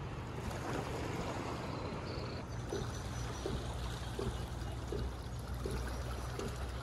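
Calm sea water lapping gently against rocks and a concrete pier, a steady soft wash with a low rumble beneath.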